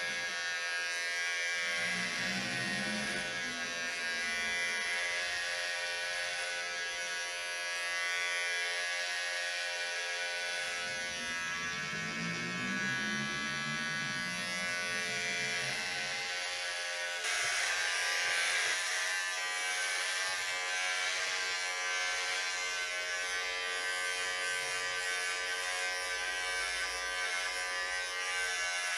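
Corded electric hair clippers buzzing steadily while shaving a head down to stubble. The buzz turns brighter and slightly louder about two-thirds of the way through.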